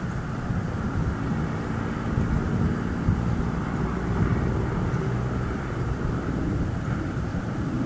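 Steady low outdoor rumble with a faint engine drone, distant motor noise such as an aircraft or traffic, mixed with wind on the microphone.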